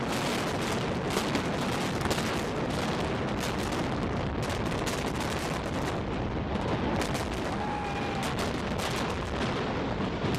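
Explosive implosion of a concrete domed stadium: a long, rapid crackle of many sequenced demolition charges going off one after another, over a low rumble from the collapsing structure.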